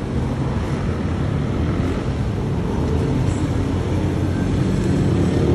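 Road traffic and car engine noise through an open car window: a steady rumble that slowly grows louder.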